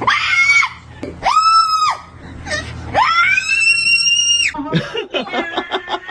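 A bird screeching: three loud, high, steady cries, the third the longest, followed by rapid broken chattering near the end.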